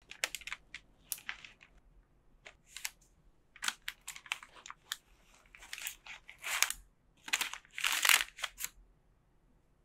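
Soft butter bread heaped with shredded cheddar being torn apart by hand: an irregular run of crackles and rustles, with two longer tearing sounds in the second half.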